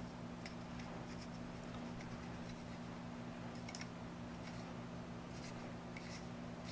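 Faint scattered clicks and scrapes of a metal clip-on phone lens being handled and screwed together, over a steady low hum.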